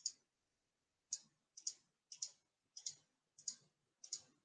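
Computer mouse button clicking, about seven faint, separate clicks roughly every half second, as the debugger's step control is clicked repeatedly.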